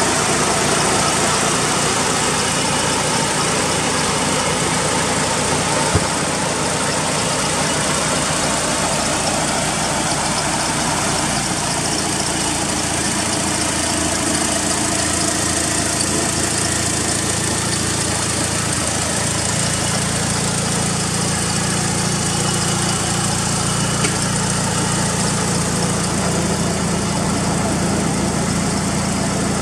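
Mitsubishi Lancer Evolution IV's turbocharged 4G63 2.0-litre inline-four idling steadily, with one short click about six seconds in.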